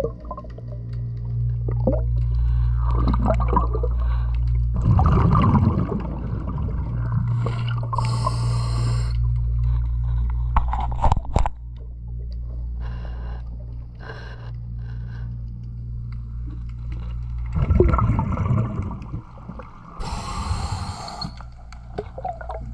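Diver breathing through a scuba regulator underwater: a rush of exhaled bubbles followed a couple of seconds later by a hiss of inhaled air, twice, over a steady low hum. A few sharp clicks about halfway through.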